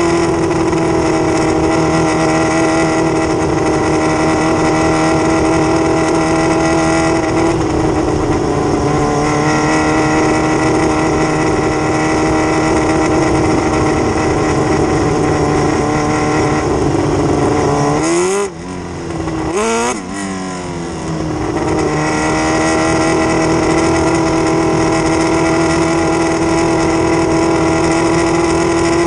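600cc micro sprint car's motorcycle engine running at high revs on board during a race. It holds near flat out, except that about eighteen seconds in the revs fall away twice in quick succession as the throttle is lifted, then climb back to a steady pull.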